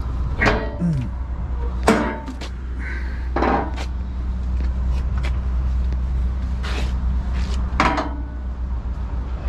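Hood of a Volvo VNL760 semi truck being unlatched and tilted forward, its front bumper wings swinging open: a handful of separate metal knocks and clunks, the loudest about two seconds in, over a steady low hum.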